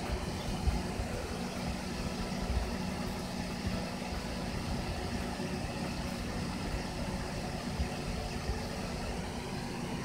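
Microwave oven running with its cover off: a steady hum from the high-voltage transformer and the cooling fan, with the refitted magnetron working and heating a cup of water.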